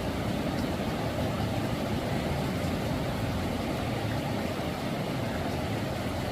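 Steady rushing of floodwater, a dense even noise heaviest in the low range.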